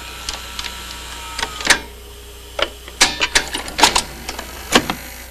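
VHS video cassette recorder's tape mechanism clicking and clunking, with a faint whine that dies away early and a steady hum underneath, as the deck stops the tape.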